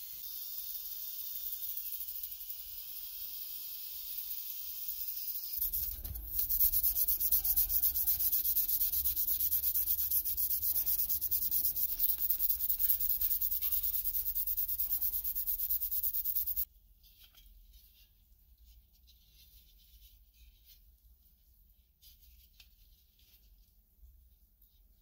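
A cordless drill spins an abrasive wheel against a wet metal lamp part with a steady hiss. About six seconds in, a louder, fast rubbing takes over as a scouring pad scrubs the perforated metal lamp shell, and it cuts off abruptly about ten seconds later, leaving only faint ticks of handling.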